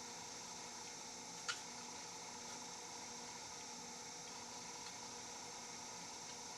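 A lock pick working the pins of a disc padlock under very light tension. It gives one sharp click about a second and a half in and a few faint ticks, over a steady hiss.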